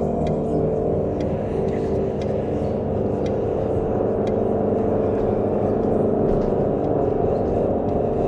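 A steady, low drone of several held tones over a rumble, the eerie suspense score of a horror film, unchanging in level throughout.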